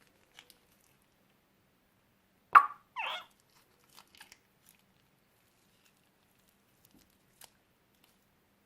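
Hands handling slime-making materials: a loud, sharp noise about two and a half seconds in, a shorter one just after, then a few light clicks and taps.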